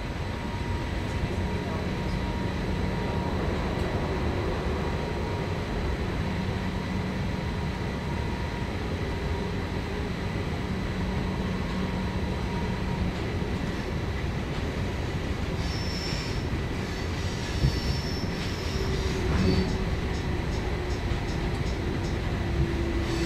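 Electric passenger train running, heard from inside the carriage: a steady rumble of wheels on rail with a faint electric hum. Short high wheel squeals come a little over two-thirds of the way through, and a low tone slowly falls near the end.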